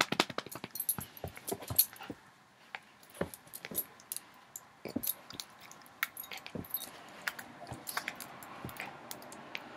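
Soft, irregular rustling and scratchy clicks of a small long-haired dog wriggling while it is petted and handled on a bed.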